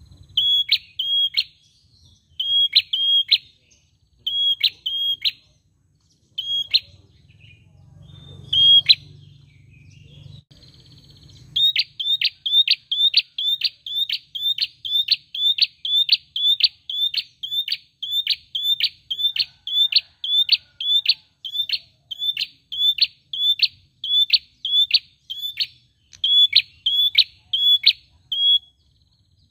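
A caged prenjak, a small rufous-capped tailorbird, calling in sharp, high chip notes. It starts in short groups of two or three notes with pauses, then goes into a long, steady run of repeated notes, about two a second.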